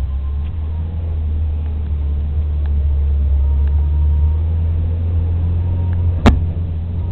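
Jeep TJ engine running steadily at low speed with a deep rumble while crawling over rocks. A single sharp knock sounds about six seconds in.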